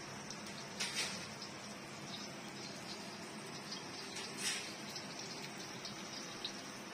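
Wok of dried chillies, garlic and hot water heating over a gas burner: a faint, steady watery hiss with a few soft pops, about a second in and again midway.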